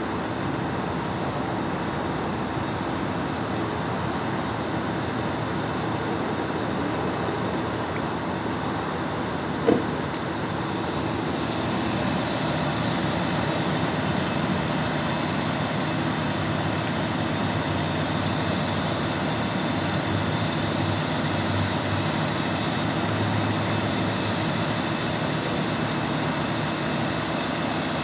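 Steady hum of idling emergency-vehicle engines, a fire engine and an ambulance, growing slightly louder about twelve seconds in. A single sharp click or knock cuts through about ten seconds in.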